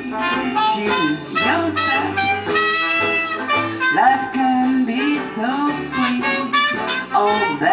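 Traditional jazz band playing live: clarinet, trumpet and trombone lines over upright bass and drums.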